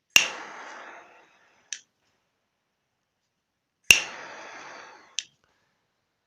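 Butane jet-flame lighter lit twice: each time a sharp ignition click, then about a second of hissing flame that fades, then a short click. One more sharp ignition click comes right at the end.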